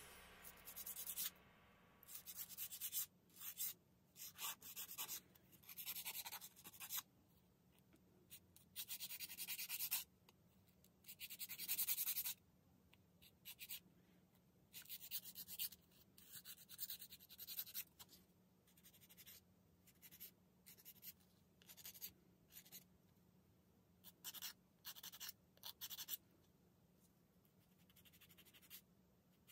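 Hand nail file rasping against long acrylic gel (polygel) nail extensions, in irregular runs of scratchy strokes with short pauses between them.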